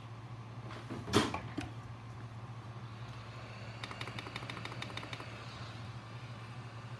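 Tools being handled on a workbench over a steady low hum: one sharp knock about a second in, then a quick run of rapid clicks near the middle as a handheld heat gun is picked up.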